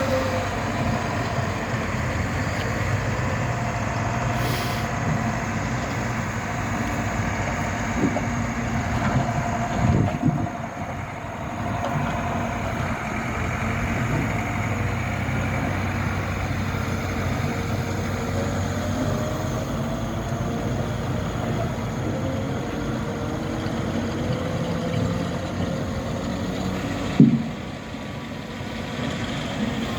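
Liebherr LH 35 M timber excavator's 140 kW diesel engine running steadily, with a whine that slides in pitch now and then. Two sharp knocks are heard, one about a third of the way in and a louder one near the end.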